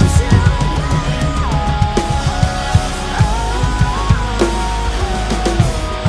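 A PDP birch drum kit played hard along with a rock band's recording: quick kick-drum strokes with snare and cymbal hits. Above the drums a held lead line slides from note to note.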